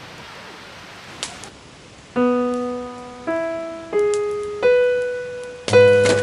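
Background piano music: a slow line of single notes, each struck and left to fade, ending in a fuller chord with a deep bass note near the end. Before the first note there is only a faint hiss with one small crack.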